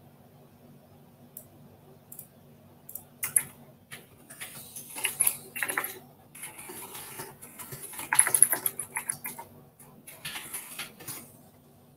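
Irregular clicking and clattering of small hard objects. A few sharp clicks at first, then a dense burst of clatter that stops near the end, over a steady low hum.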